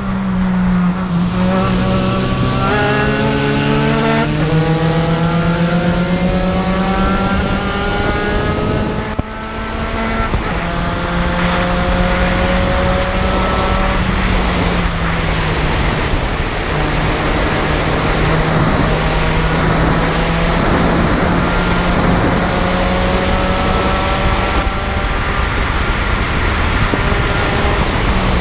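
Spec Racer Ford Gen3's four-cylinder engine under race load, heard from the cockpit: its pitch climbs steadily through a long pull, drops sharply about nine seconds in, runs level, then climbs again later on. Wind and road noise underneath, with a high steady whine during the first pull.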